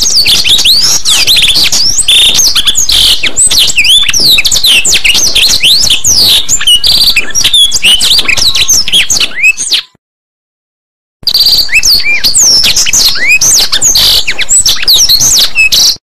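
Green leafbird (cucak ijo) singing a fast, varied stream of sweeping whistles and chirps. The song cuts off about ten seconds in and starts again a little over a second later.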